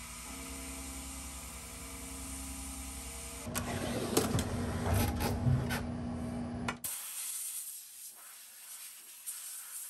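A machine's motors hum in steady tones that shift every second or so, then about three seconds of louder clattering and knocks cut off suddenly, leaving a faint hum.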